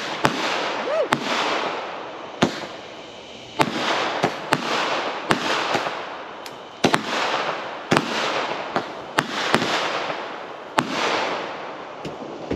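Consumer aerial fireworks going off: repeated sharp bangs as the shots burst, some in quick pairs and some about a second apart, over a steady hissing crackle.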